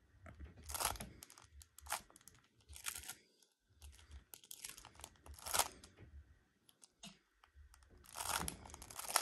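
Gan XS speedcube being turned: quick layer turns, each a brief plastic swish and click, in short bursts with pauses between and the longest run near the end, as an F2L pair is inserted.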